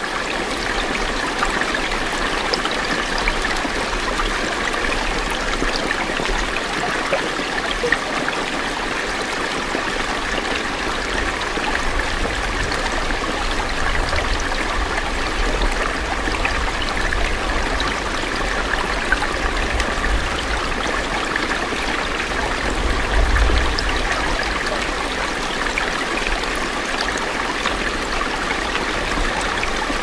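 Small forest stream cascading over rocks, a steady rushing and splashing of running water, with a brief low rumble swelling about two-thirds of the way through.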